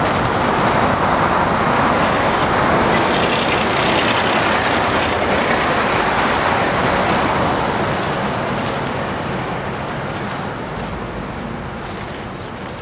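Road traffic: trucks and cars passing on a busy road, a steady rush of engine and tyre noise that is loudest for the first several seconds and then slowly fades.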